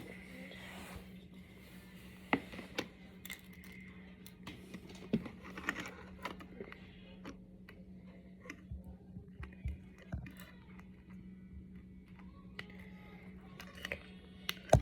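Small plastic Brain Flakes discs clicking and clattering as they are handled and snapped together, in irregular sharp clicks, over a steady low hum.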